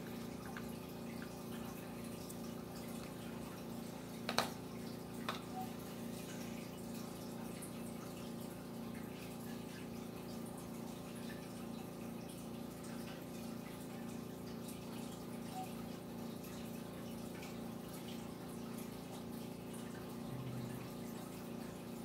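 Steady background hum with a faint regular pulsing, broken by two short sharp clicks about four and five seconds in.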